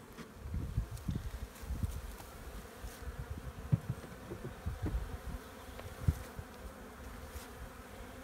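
Honeybees buzzing around an opened wooden hive while the hive boxes are prised apart and handled, with irregular low bumps and two sharper dull thumps, about four and six seconds in.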